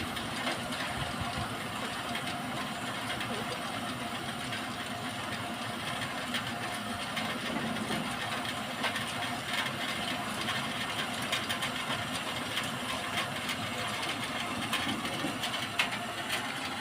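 An old Japanese-made machine running steadily, a continuous mechanical hum with light irregular ticks.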